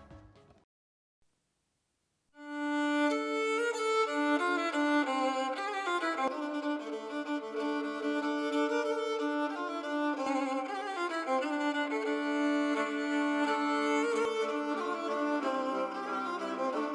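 Violin music with sustained bowed-string notes, played back through a Bluetooth speaker for a sound test. It starts after about two seconds of silence.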